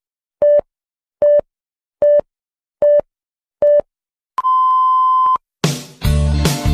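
Countdown beeps: five short beeps at one pitch, evenly spaced under a second apart, then one long, higher beep lasting about a second, the pattern of a race-start signal. Near the end loud band music crashes in.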